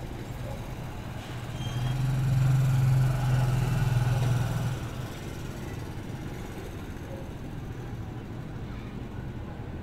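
Steady low traffic rumble, with a vehicle's engine drone swelling and fading between about two and five seconds in as it passes.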